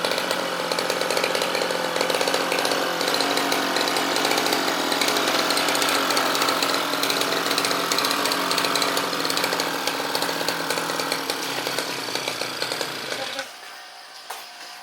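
Petrol brush cutter running steadily at high speed while clearing thick grass and undergrowth; its engine stops abruptly near the end, followed by a few faint clicks.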